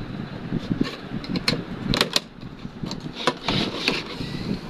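Screwdriver scraping and clicking in the screws of a battery charger's case as it is unscrewed, with knocks as the box is handled and turned over on the bench. The sharpest clicks come about two seconds in.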